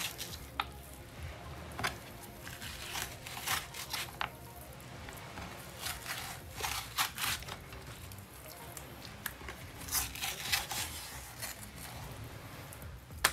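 Skin of a unicornfish fillet being pulled and cut away from the flesh by hand and knife: irregular tearing, peeling and scraping noises, with a few brief knocks on the wooden cutting board.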